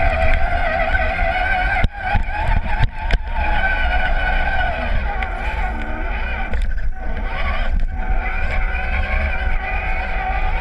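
Radio-controlled truck's motor and gears whining from on board as it drives through snow, the pitch wavering with the throttle and dipping out briefly a few times. A heavy low rumble of the chassis shaking sits underneath.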